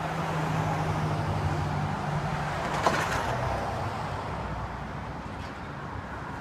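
A motor vehicle passing on the street: its engine hum and road noise swell over the first few seconds and then fade. A single sharp click comes about three seconds in.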